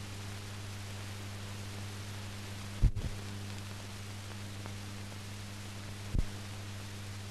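Background noise of a silent film transfer: steady hiss with a low hum. Low thumps come about three seconds in, doubled, and again about six seconds in.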